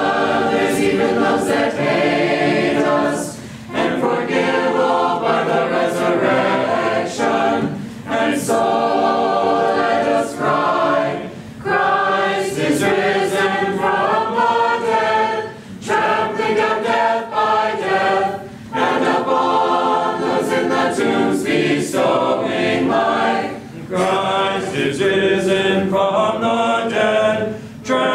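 A church choir sings Orthodox Paschal chant a cappella, several voices in harmony. The phrases run about three to five seconds each, with a short break for breath between them.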